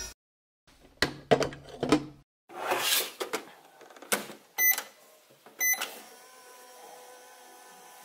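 Just Like Home toy microwave being used: plastic knocks and clicks as a glass is set inside and the door is shut, then two short electronic beeps about a second apart as its buttons are pressed. The toy's steady electronic running hum starts right after, its cooking sound effect as the timer counts down.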